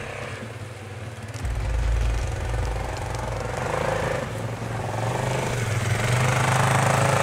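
ATV engines running and drawing closer, the steady low engine note growing louder.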